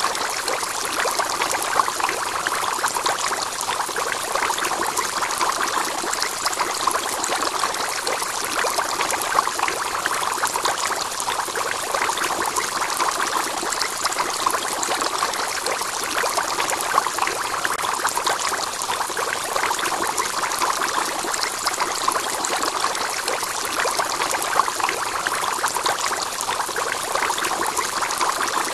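Aquarium water steadily pouring and trickling, the unbroken splash of the tank's external filter returning water into the tank.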